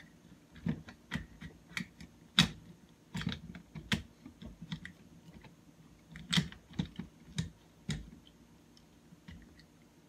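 Irregular plastic clicks and knocks from the head and phone mount of a Hemmotop 54-inch phone tripod being handled and adjusted. They come in two busy spells with a short lull between them, and the sharpest knock falls about two and a half seconds in.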